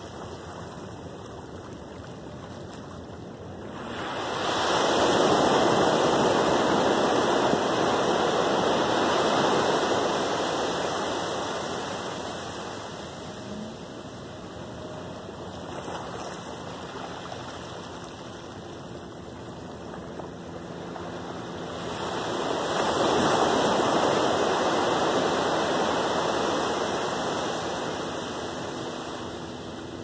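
Small ocean waves breaking on a sandy beach and washing up the shore. The surf swells about four seconds in and again past twenty seconds, each time over several seconds before easing off.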